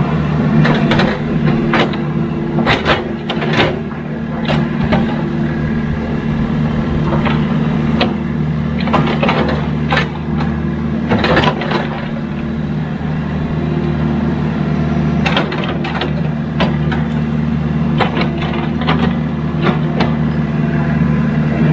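Excavator's diesel engine running steadily, with many short knocks and cracks scattered over it as the machine works the ground.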